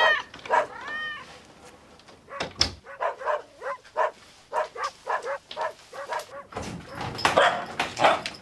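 A pet animal's cries: two drawn-out calls that rise and fall in pitch, then a run of short whining calls, with a brief noisy scrape near the end.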